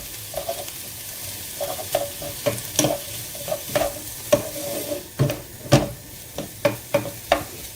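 Chopped onion and bell peppers frying in a pan, stirred with a utensil: a sizzle under irregular scrapes and knocks against the pan.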